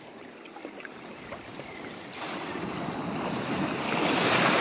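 Shallow surf washing in over the sand at the water's edge: quiet at first, then swelling louder from about halfway through as a wave runs up the beach.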